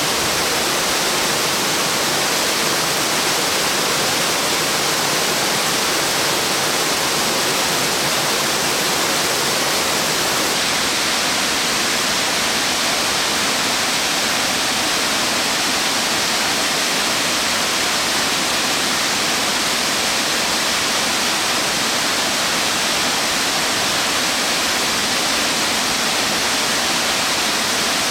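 A tall branching waterfall, a 111 m drop spread 40 m wide, giving a steady, loud rush of falling water, strongest in the upper-middle range. Its tone shifts slightly about ten seconds in.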